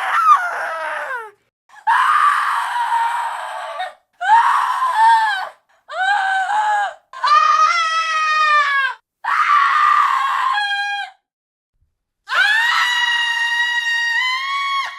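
Women screaming: about seven separate screams in quick succession, some hoarse and ragged, others shrill and clear-pitched, the last one the longest and held steady.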